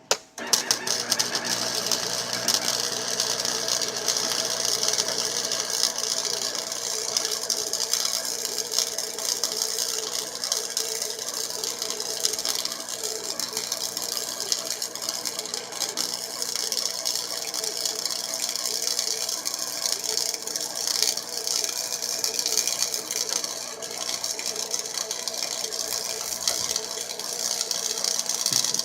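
Chicago Electric 90 Amp flux-core wire welder's arc crackling and sputtering steadily as it lays one long continuous bead, struck suddenly right at the start.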